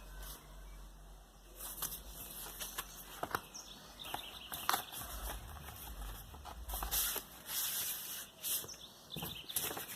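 Rustling and crinkling of a record's packaging being handled during unboxing, in irregular bursts with a few light clicks and knocks.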